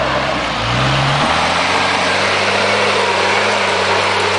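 Off-road Jeep's engine revving up briefly about a second in, then holding a steady pitch as the truck pulls through a muddy ditch.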